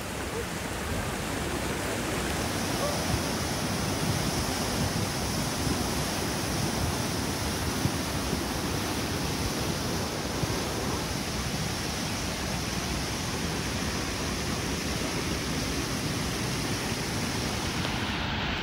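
Brown flash-flood water rushing fast through a swollen creek and streets, a steady rush of water.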